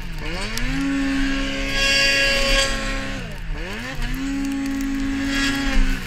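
Arctic Cat M8 snowmobile's two-stroke engine revving high and steady. About three and a half seconds in it drops off the throttle and climbs straight back up, and it dips again at the very end.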